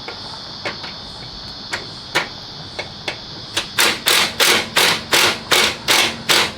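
Repeated knocks during car repair work. A few scattered taps come first, then from a little past halfway a steady run of strikes about three a second.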